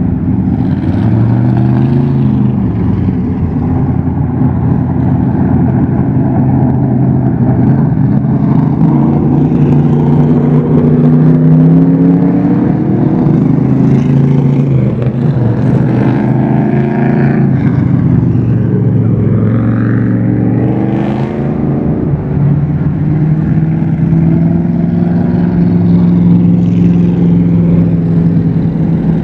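Engines of vintage stock cars running and revving as they parade past, several at once, their pitch rising and falling, with a quick sharp rev about 20 seconds in.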